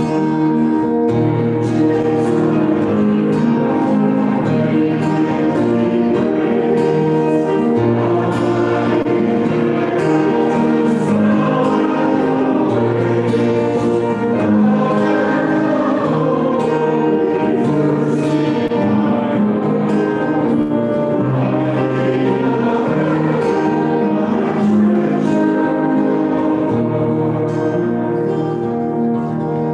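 Church choir singing a hymn over held accompaniment notes, at a steady level.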